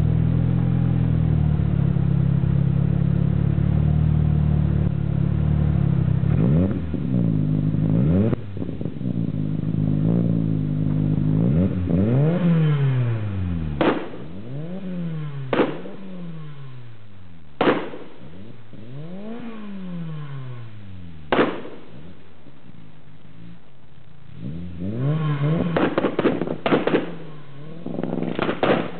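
Mitsubishi Lancer Evolution VIII MR's turbocharged four-cylinder engine, tuned to 600 bhp, running on anti-lag: steady and loud for the first several seconds, then blipped up and down repeatedly, with sharp single bangs from the exhaust after several of the blips. A quick string of pops and bangs comes near the end; the bangs are the anti-lag firing and misfiring.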